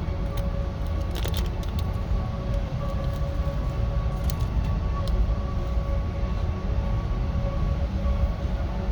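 A steady low rumble with a faint steady hum, like a vehicle running, under a few sharp crunches of a crunchy biscuit being chewed near the start and again about four to five seconds in.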